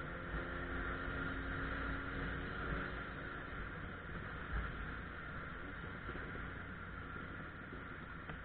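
Suzuki Bandit 1200 motorcycle under way, its inline-four engine running steadily with no revving, over a steady rush of wind noise.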